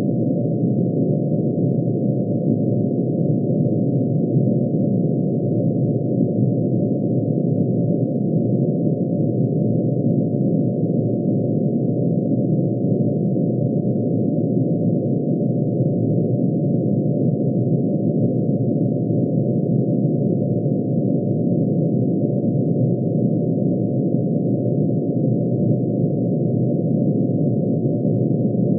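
Synthesized drone made by summing sine waves, one for each spectral line of mercury's atomic emission spectrum, pitch-shifted into hearing range. It holds steady as a dense low cluster of many close tones that does not change.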